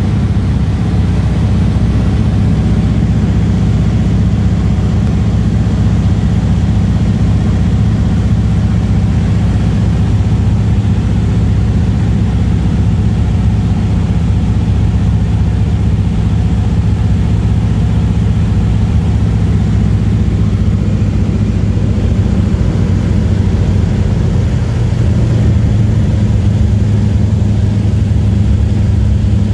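Single-engine piston airplane's engine and propeller running steadily on a landing approach, heard from inside the cockpit.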